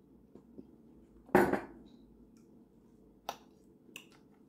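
A ceramic mug set down on the table with one sharp knock about a second in, followed by a few light clicks of a fork against a plate.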